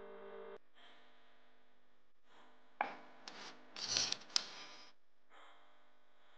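A clear plastic manual food chopper bowl being handled and set down on a countertop: a sharp knock, then about two seconds of plastic rubbing and scraping with a couple of sharp clicks. Guitar music cuts off about half a second in.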